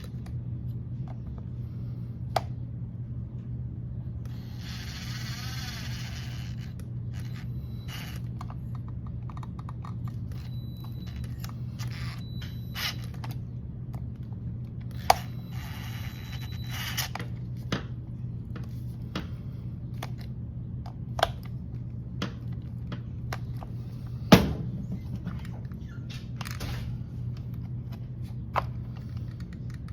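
Screws being snugged down on an RC truck's metal motor mount with a hex driver: scattered clicks and taps of the tool and parts, the loudest about 24 seconds in, and two short scraping stretches, over a steady low hum.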